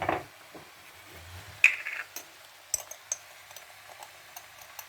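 Light kitchen clinks and ticks of a utensil against a dish, with one louder ringing clink about one and a half seconds in and a few small taps after it.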